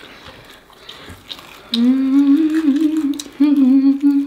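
After a quiet start, a person hums a wavering melody that steps up and down in pitch, beginning a little under two seconds in.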